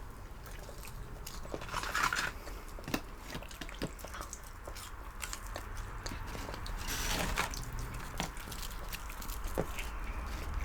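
Close-miked eating sounds: biting and chewing of fried fast food (fries and breaded chicken strips), with scattered small mouth and handling clicks and a louder crunchy rustle about two seconds in and again around seven seconds.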